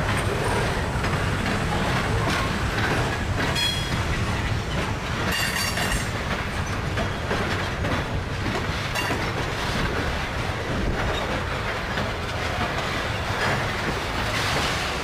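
Freight train's covered hopper cars rolling past: a steady rumble of steel wheels clacking over the rail joints. Two brief high-pitched wheel squeals come about four and six seconds in.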